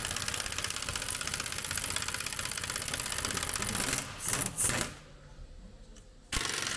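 Cordless impact wrench hammering rapidly as it undoes a bolt at the car's rear differential. It runs for about four seconds, stops with two sharper clinks, pauses, and starts hammering again near the end.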